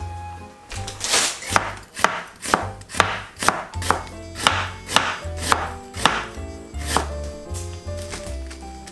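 Kitchen knife thinly slicing red cabbage and onion on a cutting board, a steady chop about twice a second that stops near the end.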